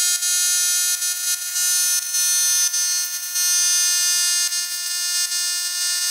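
Portable tyre inflator running with a steady, high-pitched buzzing whine while it pumps up a plugged motorcycle tubeless tyre. The inflator is old and, its owner says, no longer working well.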